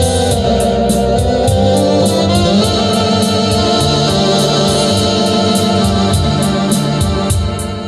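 Organ playing a melody over held chords, the bass notes changing every second or so, with a steady ticking beat of about three to four a second behind it.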